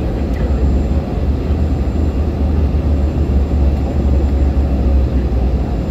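Steady airliner cabin noise heard from a passenger seat during the descent to land: a deep, even rumble of the engines and rushing air.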